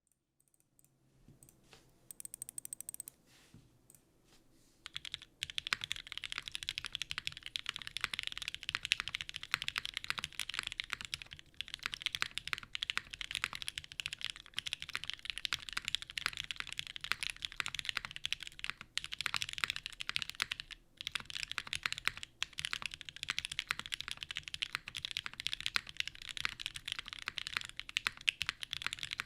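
Typing on a Keycult No. 1 Rev 2 gasket-mount mechanical keyboard with Gateron Pink linear switches on an aluminium plate and GMK keycaps. A few scattered keystrokes give way, about five seconds in, to steady fast typing.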